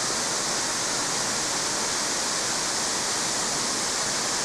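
Steady rush of a very tall waterfall's water crashing down, heard close to its base; a dense, even hiss with most of its weight in the high range.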